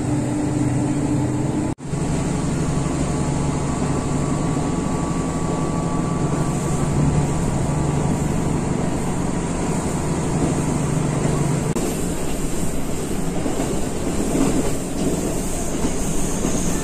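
Diesel train heard from inside the carriage while running along the line: steady running noise under a low engine drone. The drone drops away about three-quarters of the way through, leaving the running noise. The sound cuts out for an instant about two seconds in.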